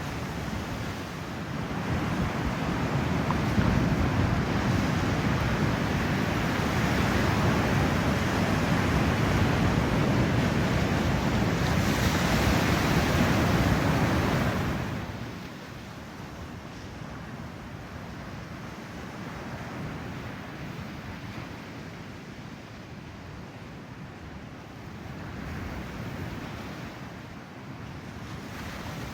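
Ocean surf breaking, with wind buffeting the microphone: a loud rush of breaking water for the first half that drops off to a quieter wash of surf about halfway through.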